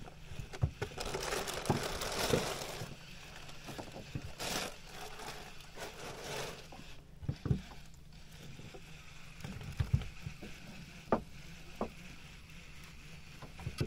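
Handling noise aboard a small fishing boat: scattered knocks and scrapes against the boat, a few short bursts of noise, over a low steady hum.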